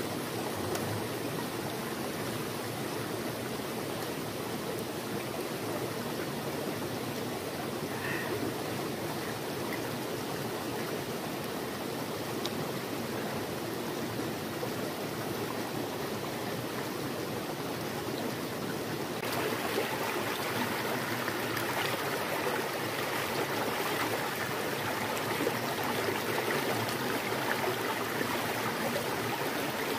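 Shallow rocky forest stream flowing with a steady rushing babble. About two-thirds of the way in it becomes louder and hissier.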